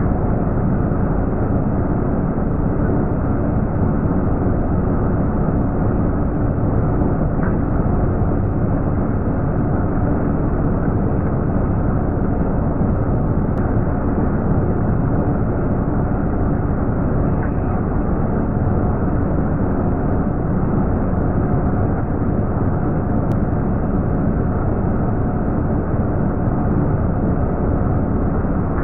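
Metal lathe turning a bar while the lathe tool takes a cut: a steady, even machine noise with no change in level.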